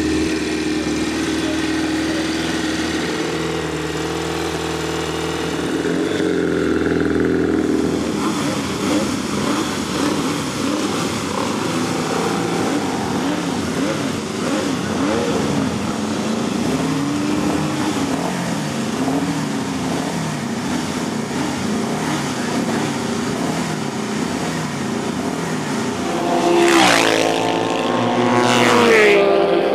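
Norton Commando F750 racer's 750 cc parallel-twin engine running steadily, then revving up and down as the bike rides off. Near the end, racing motorcycles pass at speed twice, each with a sharp drop in pitch.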